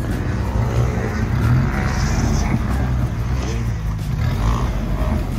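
Jeep Wrangler TJ engine running with a low, steady rumble as the Jeep crawls slowly up a rocky dirt trail.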